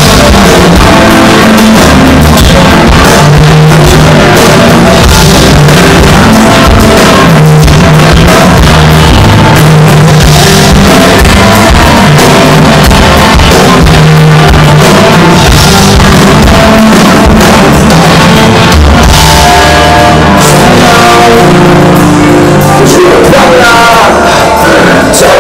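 Live rock band playing loud, with a singer's voice over the band.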